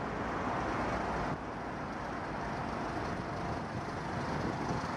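Steady city road traffic noise: an even wash of distant cars and engines with no single vehicle standing out. It drops slightly in level about a second and a half in.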